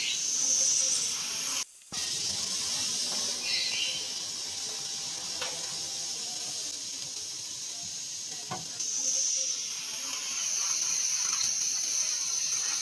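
Pressure cooker heating on a parabolic solar cooker, hissing steam from its lid valve as the meat inside boils under pressure. A steady high hiss, cut off briefly about two seconds in.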